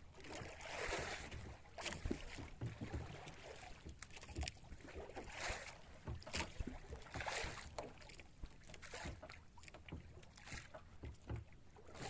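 Water sloshing and splashing against the hull of a small boat at sea in swells every couple of seconds, with scattered knocks and clicks.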